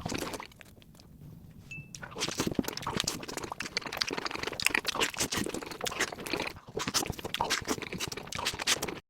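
Close-miked mukbang eating sounds: crunchy chewing with rapid crackles and mouth clicks. They fall quiet for about a second and a half shortly after the start, then resume.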